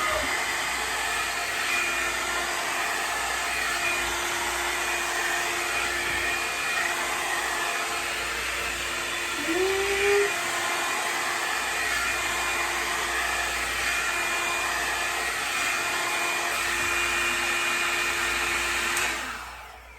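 Revlon One Step hair dryer and styler (a paddle-brush hot-air dryer) running steadily with a hiss of blown air, then switched off near the end, its sound fading away.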